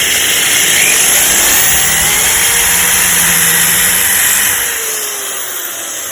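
Electric drill with a titanium metal bit boring out a stainless steel rivet, cooled with water. It runs steadily, then eases off and drops in level about four and a half seconds in as the rivet head opens.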